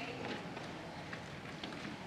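Quiet concert-hall ambience before a school band starts playing: faint audience rustling and murmur with a few small clicks and knocks.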